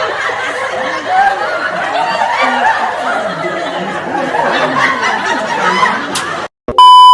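Several people laughing and snickering together. Near the end the laughter cuts out and a loud, steady electronic beep sounds for about half a second.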